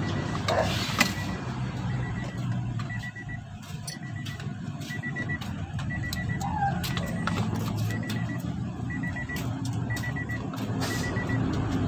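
A high electronic beep repeating in short runs over a steady low hum, with scattered clicks and taps.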